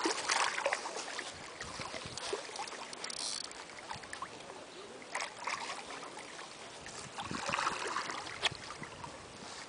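A large hooked fish thrashing and splashing at the water's surface close to the bank while it is still fighting the line, in irregular splashes, the biggest right at the start and more near the end.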